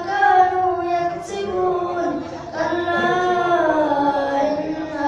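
A child's voice chanting a Qur'an recitation (qira'ah) in a melodic style, holding long notes that waver and glide in pitch.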